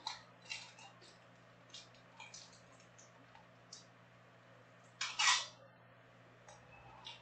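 Plastic card sleeves and rigid top loaders rustling and clicking as trading cards are slid in and handled: a series of short scrapes, with a longer, louder rustle about five seconds in.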